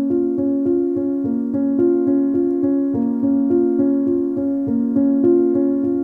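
Background keyboard music: a steady, even run of piano notes with sustained chords beneath.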